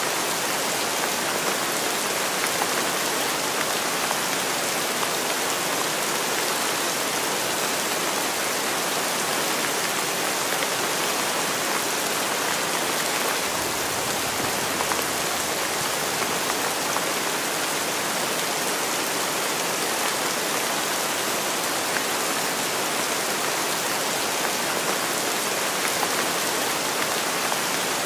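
Heavy rain falling in a steady, even hiss. About halfway through, a deeper rush swells for a few seconds and then fades back.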